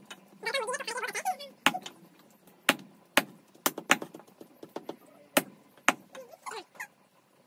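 Cleaver chopping raw chicken into small pieces on a wooden block: about eight sharp, irregular chops. A person's voice is heard briefly near the start.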